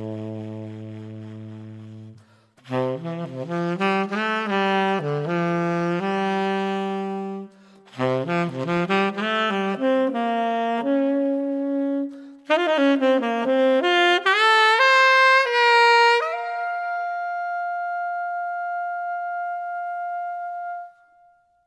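Unaccompanied jazz saxophone. A low held note fades away, then come phrases separated by short pauses and a quick climbing run, and finally a high note held for several seconds that fades out near the end.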